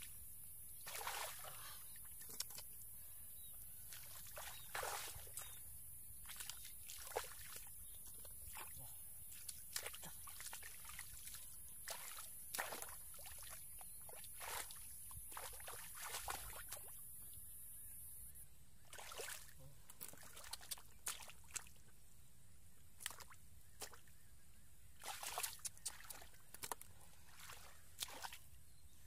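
Hands sloshing and splashing in shallow muddy water while groping through the mud for fish, an irregular run of small splashes and trickles.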